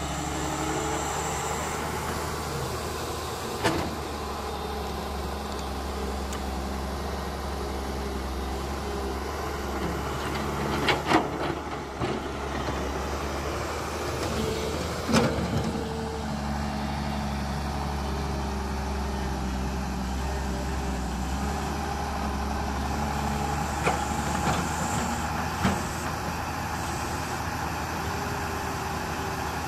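Electric motors of a radio-controlled toy excavator whining as the boom, arm and bucket move, the pitch stepping up and down with each motion. A few sharp clatters, the loudest about 11 and 15 seconds in, come as sand and clods drop into the RC dump truck's bed.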